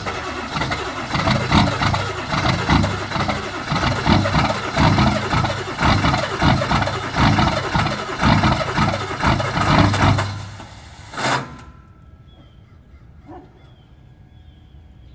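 Ford 7.3 Powerstroke turbodiesel V8 cranking hard and stumbling in uneven pulses on a cold start at about 8°F, with a starter the owner says is going out. The sound drops off about ten seconds in, with one sharp bang just after.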